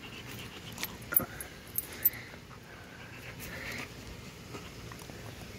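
German Shepherd making faint whining sounds, with a few sharp clicks in the first two seconds.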